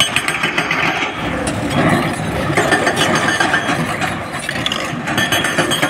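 SANY SY225 crawler excavator's diesel engine running steadily as the machine works its bucket in broken stone, with a dense run of clicks and knocks from rock against steel.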